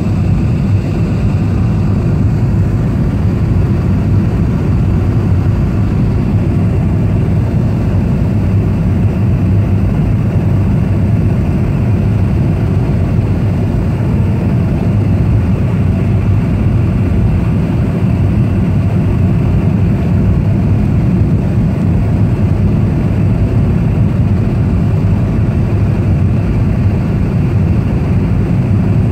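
Jet airliner cabin noise on approach to landing: a steady, loud rumble of engines and rushing air, deepest in the low end, with no change throughout.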